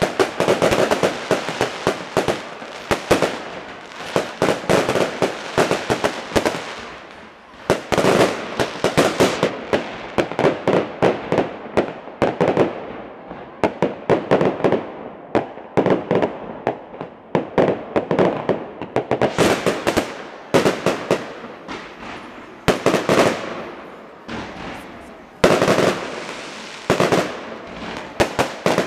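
Aerial fireworks display: rapid volleys of bangs and crackles that come in waves, with a few brief lulls between salvos.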